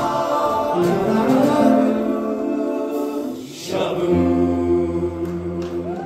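Men's a cappella choir singing the closing bars of a doo-wop arrangement in close harmony, then holding a long final chord over a low bass note from about four seconds in.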